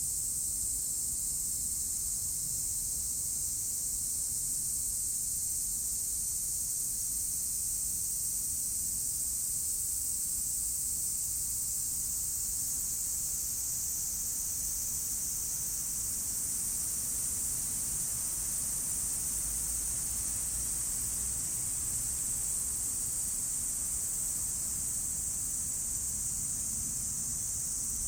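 Steady high-pitched insect chorus, an even unbroken shrill that neither rises nor falls.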